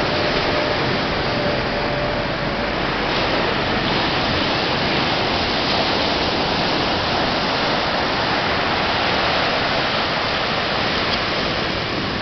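Steady rushing of sea surf, with a faint steady hum that fades out a couple of seconds in.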